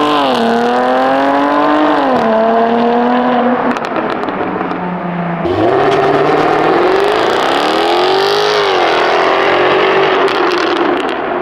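Supercharged Jaguar F-Type engine accelerating hard. Its pitch drops back at an upshift right at the start and again about two seconds in, then climbs again for about three seconds in the second half before falling away.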